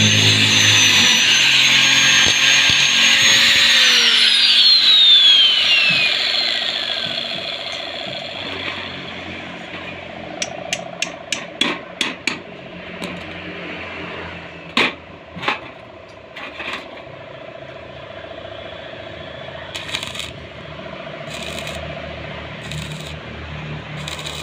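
Angle grinder running at speed, then switched off and spinning down with a falling whine. A run of sharp hammer taps on a steel pipe follows, and near the end the short crackling bursts of an arc welder striking.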